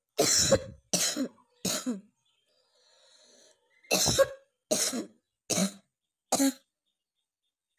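A person coughing on purpose in two bouts: three sharp coughs, a short pause with a faint breath, then four more.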